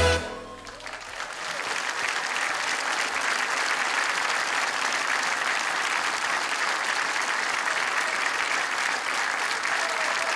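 A big band's last chord ends, and a concert audience applauds, the clapping swelling over the first couple of seconds and then holding steady.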